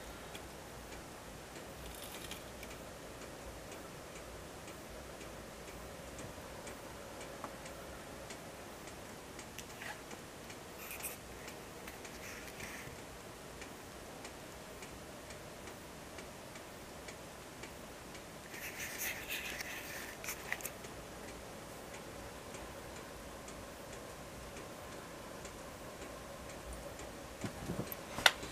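Wood fire in an Invicta Siam cast-iron fireplace, crackling quietly with scattered ticks and pops. There is a denser run of crackles about two-thirds of the way in and one sharp, louder snap near the end.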